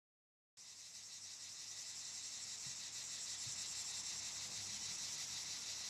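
Insects chirring: a steady, high, rapidly pulsing buzz that fades in about half a second in and slowly grows louder.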